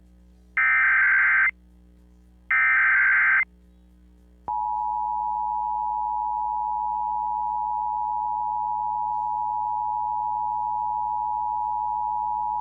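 EAS SAME data bursts: the tail of one and two more, about a second apart, each a harsh buzzing screech. About four and a half seconds in the Emergency Alert System attention signal starts, a steady two-tone beep that runs on. Together they mark the start of a new emergency alert.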